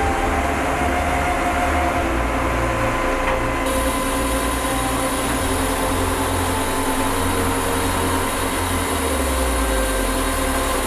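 Truck-mounted hydraulic knuckle-boom crane running: a steady engine and hydraulic hum, its low rumble shifting in level a few times.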